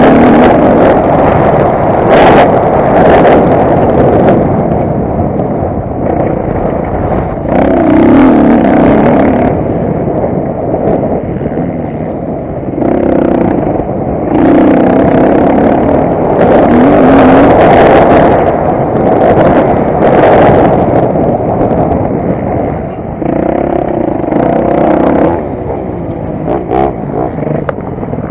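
Motocross bike engine running hard, its revs rising and falling again and again with the throttle, with short bursts of noise in between.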